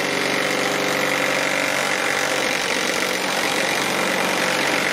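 Steady, unbroken engine-like drone of machinery with a constant hum, from work putting up a light on the outside of a building.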